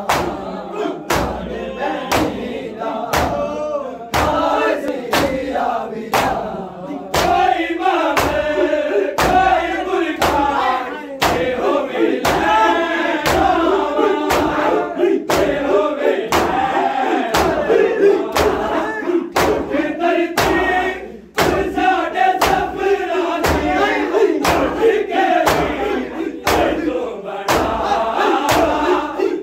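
Crowd of men chanting a noha together while they beat their bare chests in unison (Shia Muharram matam). The hand-on-chest slaps fall in a steady beat a little over once a second, under the chanting.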